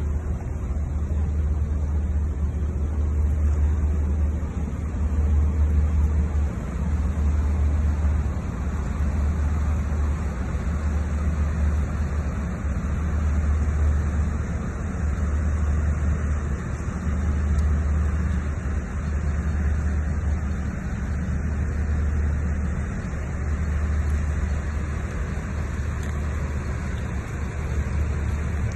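Car driving, a steady low road rumble that swells and eases every second or two.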